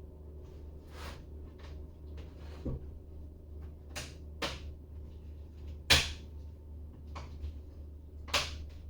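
Sharp plastic clicks and snaps from the Dell G3 15 laptop's bottom cover being pressed onto the chassis as its clips seat. There are about seven, irregularly spaced, the loudest about six seconds in, over a steady low hum.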